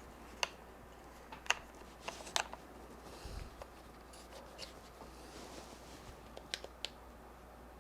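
Camera gear being handled by hand: a few sharp clicks of parts snapping or tapping together, with light rubbing and rustling between them.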